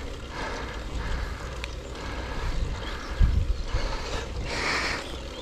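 Wind rumbling on the camera microphone over tyre and drivetrain noise from a bicycle climbing a paved road, with a stronger gust about three seconds in.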